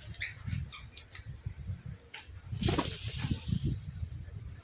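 A flock of birds feeding and flapping their wings, with a busier flurry of wingbeats from about two and a half seconds in.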